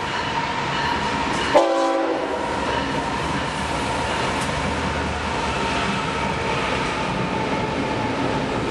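BNSF double-stack freight train running steadily past on track 2, a continuous rail rumble and wheel noise. A brief pitched tone, such as a short horn sound, comes about one and a half seconds in.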